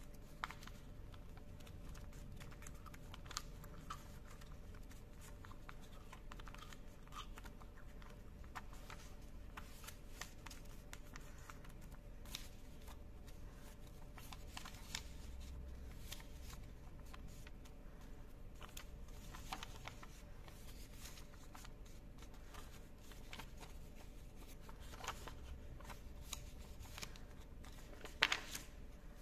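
Sheet of origami paper rustling and crinkling as it is folded and creased by hand: faint scattered crackles, with a sharper crackle near the end.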